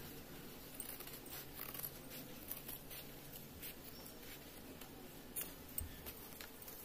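Large tailoring shears making faint, scattered snips as they cut through a stiff white buckram neck piece, with light rustling as the piece is handled.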